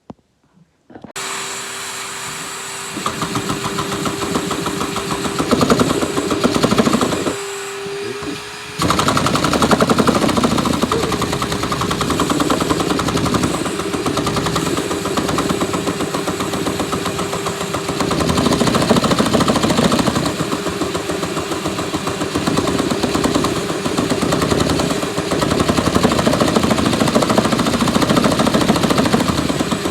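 Overhead-valve engine with a chain-driven valvetrain in place of pushrods, starting about a second in and running with rapid, loud firing. It dips in level for about a second around eight seconds in, then picks back up and surges up and down. A steady whine sits under the exhaust note.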